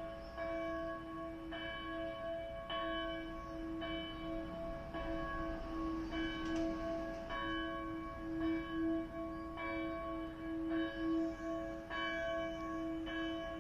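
Church bell struck steadily about once a second, each stroke's ring carrying over into the next above a steady hum.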